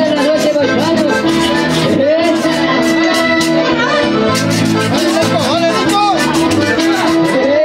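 Latin folk dance music led by an accordion, with guitar and a quick, steady percussion beat.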